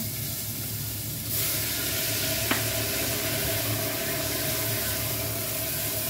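Water poured into a hot pot of fried tofu, setting off loud, steady sizzling about a second in, while a spatula stirs, with one sharp clack of the spatula against the pot a second later.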